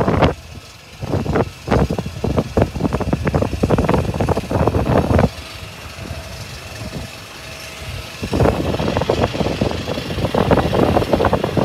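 Wind buffeting the microphone in irregular gusts, easing off for a few seconds in the middle before picking up again.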